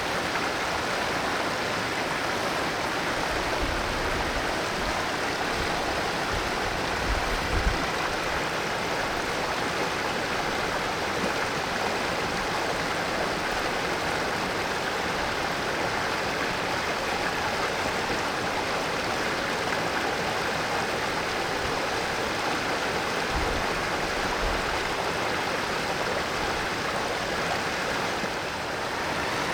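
Mountain stream water rushing steadily over rocks, a full, even flow. A couple of brief low rumbles sit under it, once a few seconds in and again later on.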